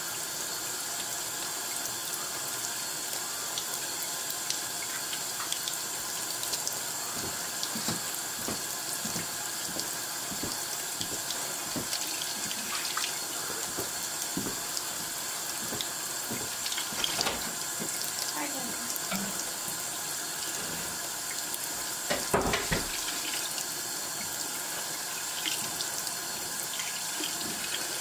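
Kitchen faucet running in a thin steady stream into the sink, with scattered small clicks and crackles of eggshell being peeled off hard-boiled eggs under the water and a louder knock a little past the three-quarter mark.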